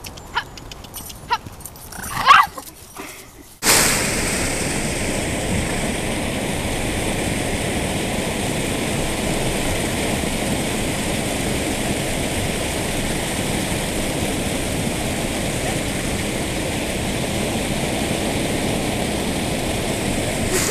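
Water pouring over a small stone weir, a steady rushing that starts abruptly about three and a half seconds in. Before it come a few sharp knocks and one short call.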